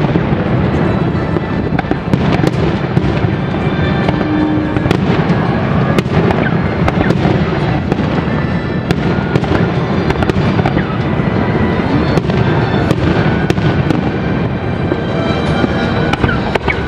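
Aerial firework shells bursting in a dense, continuous barrage: many sharp bangs in quick succession over an unbroken din.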